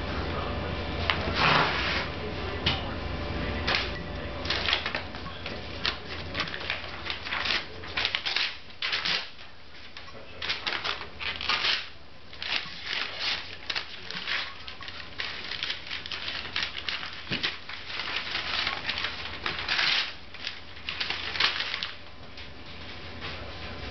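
Paper crinkling and ripping as a small white terrier tugs at and shreds the sheets, in irregular bursts of rustling and tearing.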